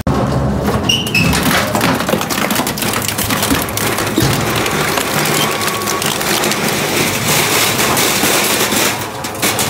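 Twin-shaft industrial shredder tearing a steel drum apart: a loud, dense, continuous crackle and crunch of sheet metal being ripped and crushed between the toothed cutters.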